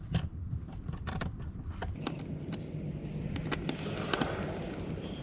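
Small clicks and scrapes of hands working a Torx screw out of a plastic interior trim panel, over a steady low rumble.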